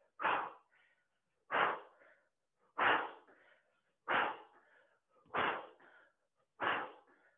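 A woman's sharp, forceful exhalations, six in a row about every 1.3 seconds, each a short puff of breath timed with a knee drive in a twisting exercise.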